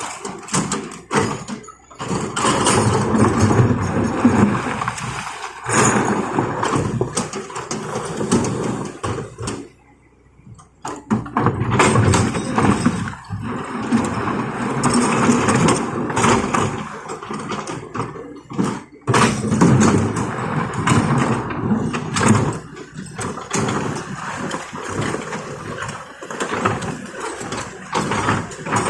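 Heavy excavator working: its engine runs under knocks, clanks and scrapes of rock and steel. The sound breaks off briefly twice, about ten seconds in and again near twenty seconds.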